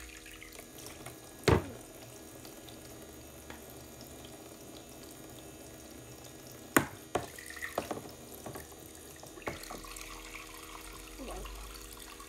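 Water running from a toy play sink's faucet into its plastic basin, over a faint steady hum. It is broken by a few sharp knocks of plastic cups and dishes: a loud one about a second and a half in, and another about seven seconds in followed by smaller clatters.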